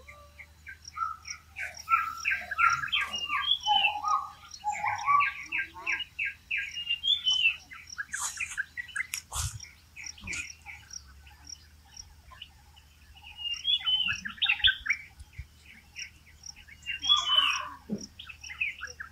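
Songbirds chirping in quick, repeated runs of notes, with a small high call ticking over and over at an even pace behind them. A short breathy burst about eight seconds in.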